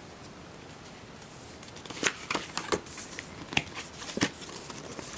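Cardboard packaging of a MacBook Air box handled: a black cardboard insert is lifted out, giving a scatter of short rustles, scrapes and taps that begin about two seconds in.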